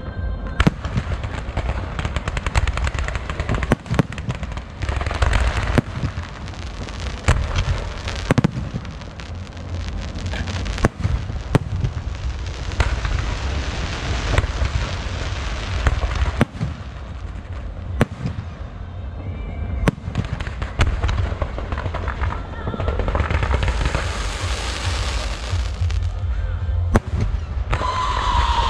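Fireworks display: repeated sharp bangs of aerial shells bursting, over continuous crackling, with a spell of loud hissing about three quarters of the way through.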